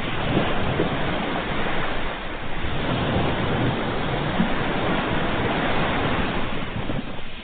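Ocean waves breaking and washing up the shore: a steady rush of surf that swells and eases off near the end.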